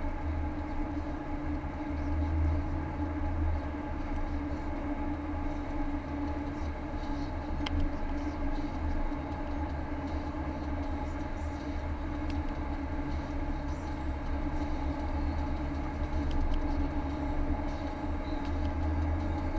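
Car cabin noise while cruising at highway speed: a steady low rumble of tyres and engine with a constant hum.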